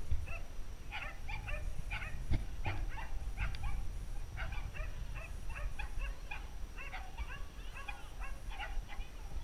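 A dog barking in quick, high-pitched yips, several a second, going on throughout, over a steady low rumble.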